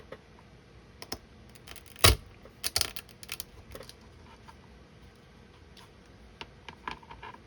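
Small plastic clicks and taps from working a 3D-printed model part free of its sprue and supports by hand. The loudest is a sharp click about two seconds in, followed by a quick cluster of clicks, with a few lighter taps near the end.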